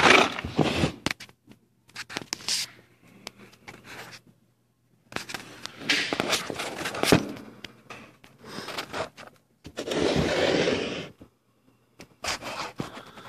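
Handling noise from the recording phone as it is propped up on the floor: irregular scraping and knocks as it rubs and bumps against the microphone, with a couple of short silent gaps.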